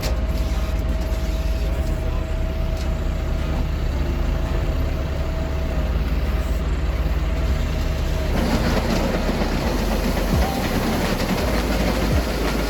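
Heavy farm machinery running steadily with a low engine rumble; the sound changes about 8 seconds in, becoming rougher and noisier.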